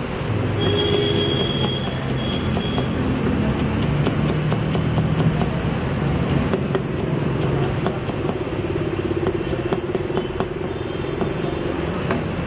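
Road traffic noise: vehicle engines running and passing with a steady low hum. A few light knocks of a knife chopping herbs and vegetables on a wooden block are scattered through it.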